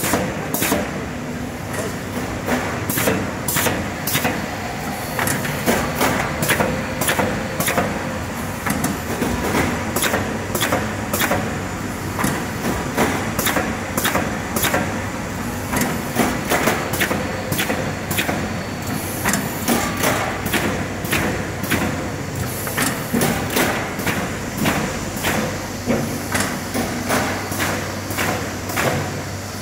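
Automatic corrugated carton partition assembly machine running: a steady mechanical hum with rapid, somewhat irregular clacks and knocks, about two or three a second, as the cardboard dividers are fed and slotted together.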